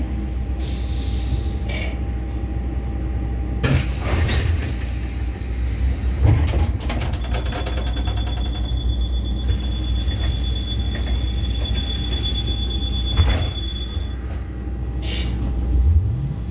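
Inside a Škoda 30Tr SOR trolleybus standing at a stop with its door open: a steady low hum, a few knocks, and a continuous high electronic tone from about seven to fourteen seconds in. Near the end the traction motor's whine starts rising in pitch as the trolleybus pulls away.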